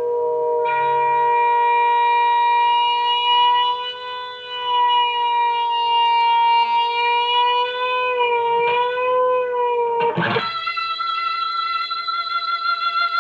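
Electric guitar note held on and on by an electromagnetic string sustainer, one steady tone that wavers slightly in pitch. About ten seconds in, a sharp strike and the string jumps to a higher pitch that rings on steadily.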